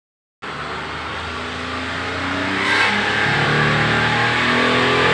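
Daihatsu Xenia 1.0's three-cylinder engine heard at the tailpipe, starting about half a second in and revved up slowly, its pitch and loudness climbing steadily. The throttle is being blipped to blow dirt and deposits out through the exhaust.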